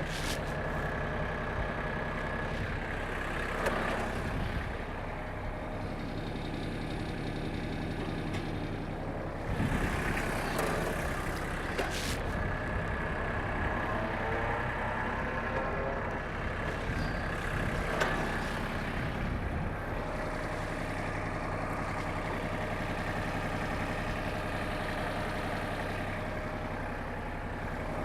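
A Mahindra Max series compact tractor's diesel engine running steadily, with a steady high whine over it. A few sharp knocks come at about 4, 12 and 18 seconds in, and the engine is louder for a couple of seconds about 10 seconds in.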